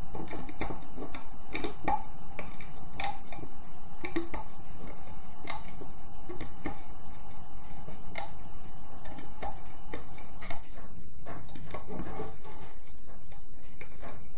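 Light, irregular clicks and taps of a loom hook and rubber bands against the plastic pins of a loom band loom as the bands are looped up, over a steady hiss.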